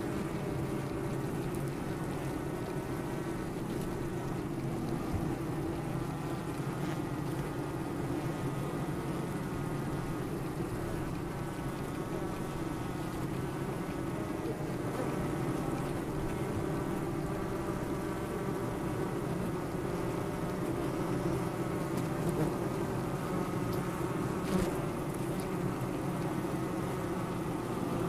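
Many honey bees buzzing together in a steady drone of overlapping, wavering tones.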